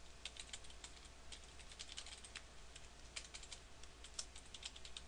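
Faint computer keyboard typing: a quick, irregular run of keystrokes starting about a quarter second in.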